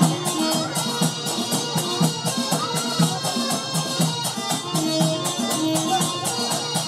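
Devotional kirtan music with a fast, steady beat of small hand cymbals over a drum and held reed-organ notes.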